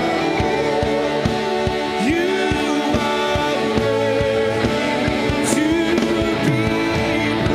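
Live worship music: a band playing sustained chords over a steady beat of a little over two strokes a second, with a singer's voice sliding between notes.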